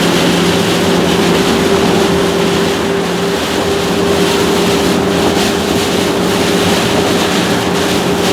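Steady drone of a camper driving at highway speed in heavy rain, heard inside the cab: a constant engine and road hum under a loud, even hiss of rain and wet tyres.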